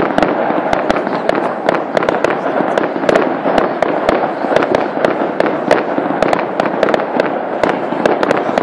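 Fireworks going off: a dense, unbroken crackle with many sharp bangs, several a second, without a pause.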